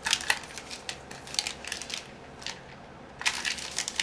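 Foil wrappers of trading-card packs crinkling and crackling as they are handled, in several short bunches of rustle with a longer one near the end.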